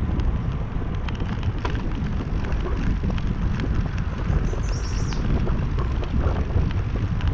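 Wind buffeting a handlebar-mounted camera's microphone as a bicycle rolls along a trail, with a steady low tyre rumble and small rattling clicks from the bike over the path surface.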